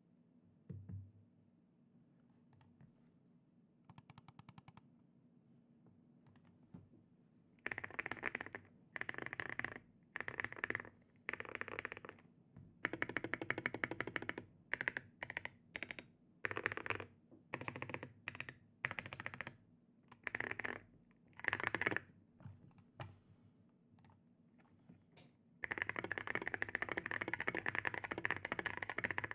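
Custom 60% mechanical keyboard with lubed Gazzew Boba U4T tactile switches, SA-profile keycaps, a polycarbonate plate and foam mods, in its creamy-sounding stabilizer test: the large stabilized keys, on lubed, Holee-modded C3 stabilizers, are pressed in short groups of rapid repeated clicks. Near the end, steady fast typing across the keys takes over.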